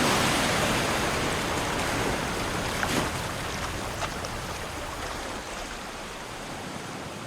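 Ocean waves washing in, a steady rushing surf that slowly fades out.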